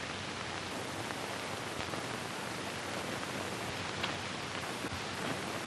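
Steady hiss of an old film soundtrack, with a couple of faint ticks and no other sound.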